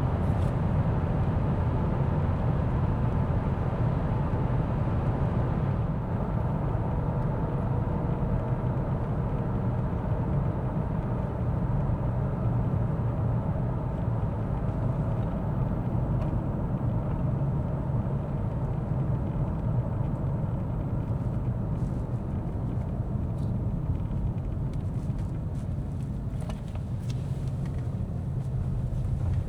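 Mercedes-Benz S 450d driving along at a steady pace: a constant low road and tyre rumble with no change in pace.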